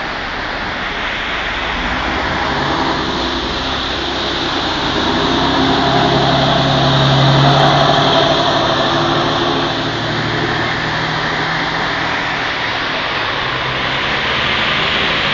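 Floodwater rushing across a street and surging up from a manhole, a steady hiss. A motor vehicle passes, its engine growing louder to a peak about seven seconds in, then fading.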